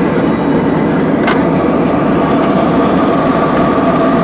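Steady roar of jet engines and airflow inside the cabin of an Airbus A320-family airliner in cruise, with a faint steady hum and a single short click about a second in.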